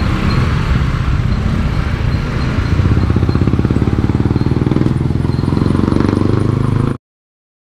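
Motorcycle engine running close by with a steady, fast low putter, mixed with passing road traffic. The sound cuts off abruptly about seven seconds in.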